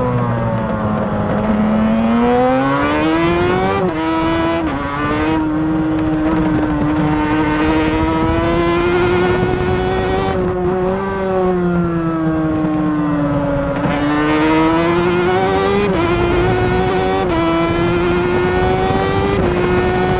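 Suter MMX 500 two-stroke V4 racing motorcycle engine under hard riding. The pitch dips and climbs back up through a corner, then rises with quick upshifts, each a sudden step down in pitch, about four seconds in and again around sixteen and seventeen seconds.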